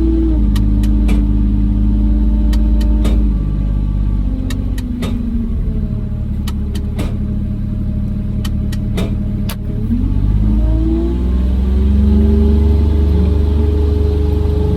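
Kubota RTV 1100 utility vehicle's three-cylinder diesel engine running as it drives, dropping in pitch about four seconds in and speeding up again near ten seconds. Sharp knocks and rattles come every second or so during the first part.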